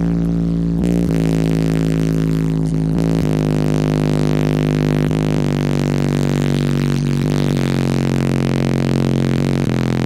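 Sundown subwoofers playing a bass-heavy song at high volume inside the truck's closed cab: a loud, steady bass tone that steps down in pitch every couple of seconds.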